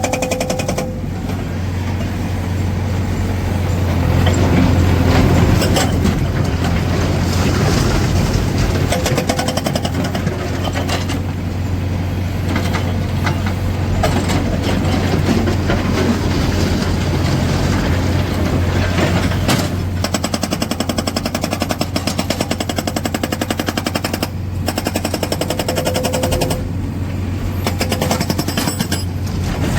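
Hydraulic rock breaker on a Tata Hitachi Shinrai backhoe loader hammering stone in rapid, continuous blows, stopping briefly several times, over the steady running of the loader's diesel engine.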